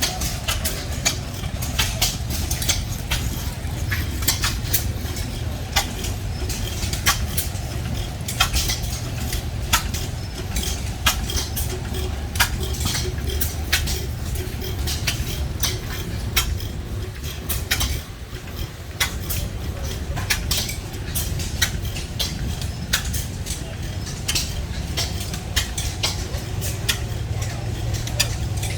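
Vintage hit-and-miss stationary gas engines running, with a steady low rumble and quick, irregular metallic clicking.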